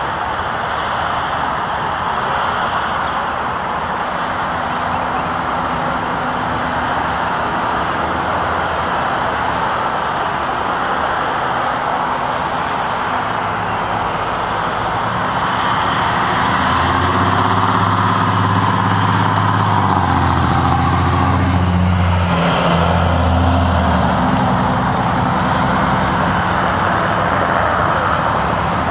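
Vehicles of a procession passing steadily along the road. A heavier engine passes closer and louder a little past the middle, with a thin high whine over it for several seconds.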